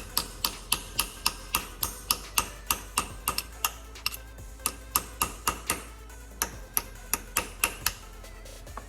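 Hammer tapping a punch against the edge of a broken bolt, rapid light metallic taps about three to four a second with two brief pauses, driving the bolt round to back it out.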